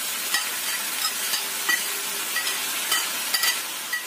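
Kway teow noodles, bean sprouts and scallions sizzling in a hot wok while a metal spatula stirs and tosses them, clinking against the wok about twice a second.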